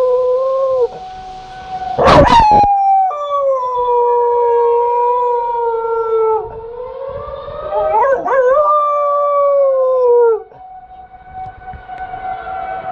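A dog howling along with a civil defence siren: long howls that slide down in pitch and break off about a second in, around six seconds in and just after ten seconds. A loud short burst about two seconds in is the loudest moment, and the siren's tone runs on underneath.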